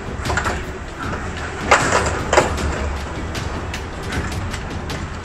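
Heavy thunderstorm rain pelting down, with a dense patter of sharp ticks on the glass and two louder knocks about two seconds in.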